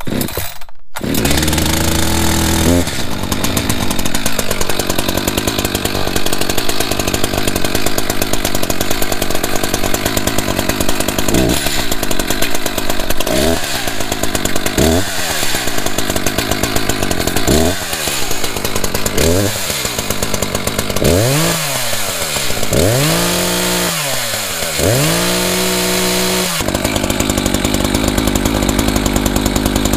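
Echo CS-590 Timber Wolf 59.8 cc two-stroke chainsaw engine pull-started, catching about a second in and running fast before dropping to a steady idle. From about the middle on it is revved with about ten throttle blips that rise and fall in pitch, the last few in quick succession, then it settles back to idle.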